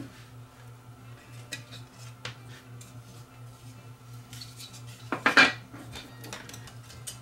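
Plastic housing parts of a Canon XL2 camcorder being handled and fitted back together on a workbench: scattered light clicks and knocks, with a louder clatter about five seconds in, over a steady low hum.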